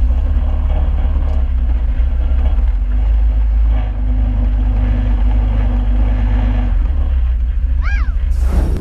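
A vehicle engine idling with a deep, steady rumble. Near the end comes a brief whistle that rises and falls, then a sharp hiss.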